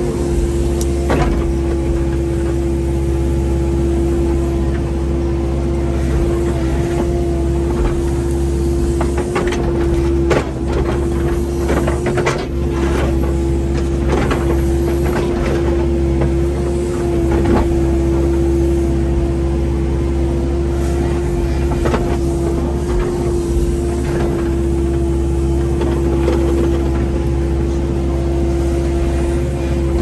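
Kubota 080 excavator's diesel engine running steadily at working speed, with scattered clanks and knocks mostly in the middle stretch.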